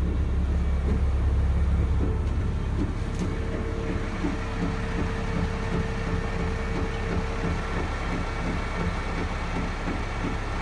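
International vac truck's engine idling, a steady low rumble that is heavier for the first two seconds, with a steady higher hum from about two seconds in until past seven seconds.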